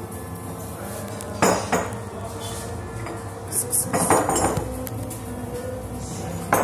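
Sharp clinks and clatters of hard objects: two about a second and a half in, a longer clatter around the middle, and another near the end, over a steady background hum.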